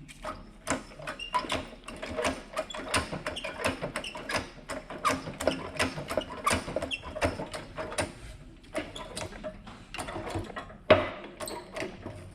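Ratchet wrench clicking in quick runs as it turns the bolt of a makeshift socket press, pushing the old upper ball joint out of the A-arm. A sharper metallic knock comes about eleven seconds in.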